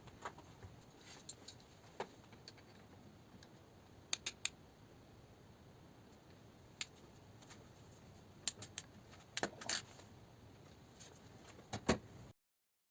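Faint room hiss with scattered small, sharp clicks and ticks at irregular intervals, a few in quick pairs; the sound cuts off abruptly near the end.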